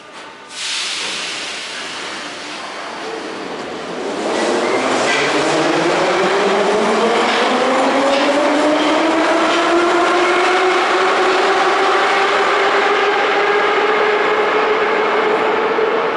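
81-717/714 metro train pulling out of the station: a hiss at first, then from about four seconds in the traction motors and gearing whine, climbing steadily in pitch as it accelerates.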